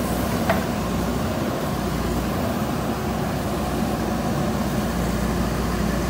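JCB 3DX backhoe loader's diesel engine running steadily while its backhoe arm works, with a brief click about half a second in.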